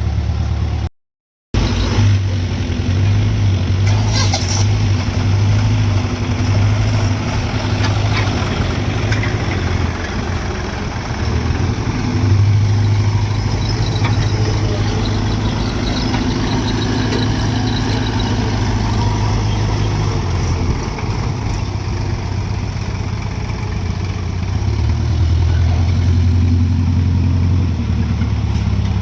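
Diesel engines of a JCB backhoe loader and tractor running, the engine note swelling and easing under changing load, loudest near the middle and again near the end. The sound cuts out completely for about half a second near the start.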